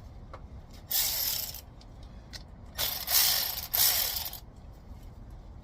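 Hand ratchet wrench clicking in three short runs, one about a second in and two more in quick succession around three to four seconds in, as a bolt is turned, likely on the replacement ignition coil.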